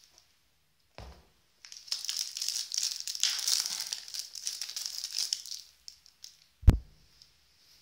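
Crinkling of a syringe's sealed plastic-and-paper packaging as it is handled, for about four seconds, followed by a single sharp thump, the loudest sound.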